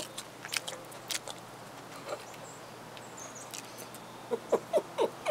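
Puppy moving and sniffing on concrete, with scattered sharp clicks, then a run of short, high, falling whimpers near the end.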